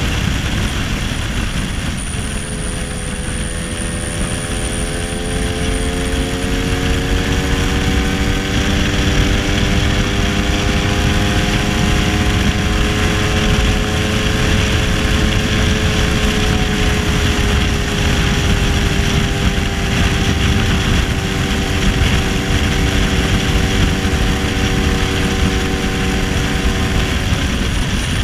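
1966 Lambretta SX scooter with a 225 Mugello two-stroke single-cylinder engine running at cruising speed, heard from on board with wind rushing over the microphone. The engine note climbs a little in the first few seconds, then slowly drops through the second half.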